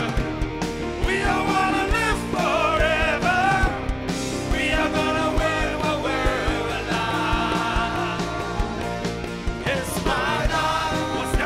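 Band music with a singing voice over sustained instrument chords and a steady drum beat.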